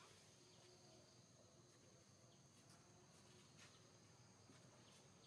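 Near silence: faint outdoor ambience with a steady high-pitched insect drone.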